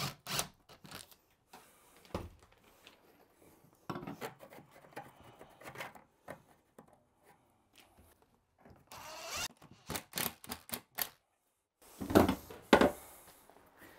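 Scattered knocks, taps and light scrapes of hand work on a shower base installation, with a quick run of taps about two thirds of the way through and two louder thumps near the end.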